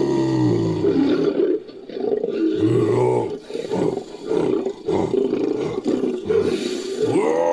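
Made-up creature sound effect: a rapid series of short lion-like roars, several arching up and down in pitch, mixed from a human voice and big-cat recordings.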